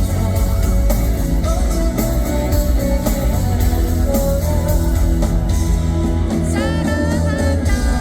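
Live rock-style band performance with electric guitar, drums and a singer, played loud through the venue's sound system during a concert sound check.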